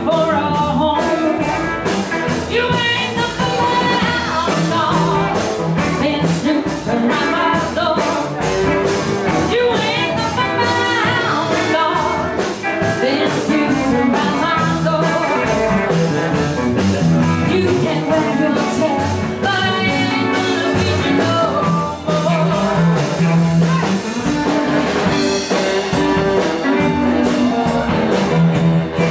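Live rock and roll band playing a driving beat, with electric and acoustic guitars, drums and saxophone, and a woman singing.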